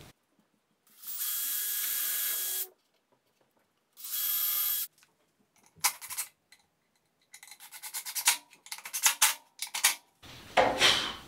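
DeWalt 20V cordless drill running in two short bursts, the first about a second and a half long and the second under a second, boring pilot holes into plywood to mount a wedge on a table-saw jig. It is followed by a run of irregular clicks and knocks from handling the drill and the wood.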